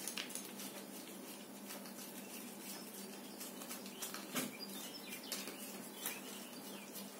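Pit bull puppy licking a treat from a small cup held in a hand: quiet, irregular wet tongue clicks and smacks.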